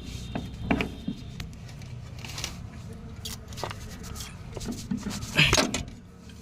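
Scattered metal clinks, knocks and scrapes as a Sonalika RX 42 tractor's brake disc is worked loose and pulled off inside the opened brake housing, with a louder knock cluster about five and a half seconds in.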